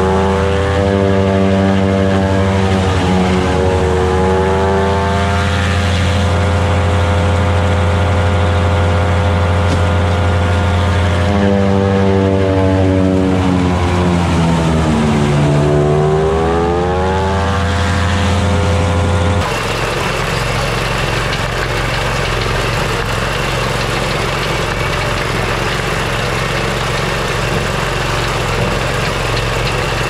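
Engine of a corn binder running under load as corn stalks feed through, its pitch dipping and recovering. About two-thirds of the way through it switches abruptly to a steadier, rougher running sound.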